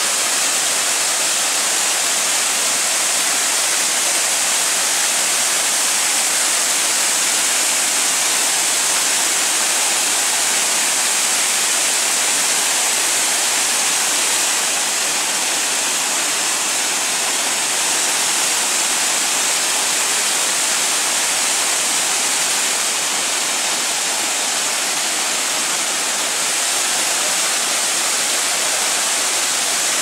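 Close small waterfall: water pouring and splashing over rock ledges in a steady rushing hiss.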